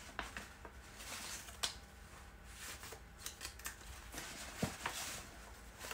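Sheets of paper rustling and shuffling as they are leafed through by hand, with a few light clicks and taps.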